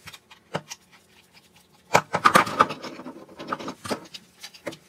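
Threaded metal pipe fittings clicking and knocking against each other and the wooden table as they are handled, with a cluster of knocks about two seconds in.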